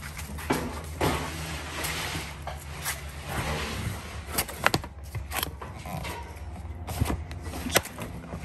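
A plastic storage tote and boxes being handled and opened: scattered knocks and clunks with scraping and rustling, over a steady low hum.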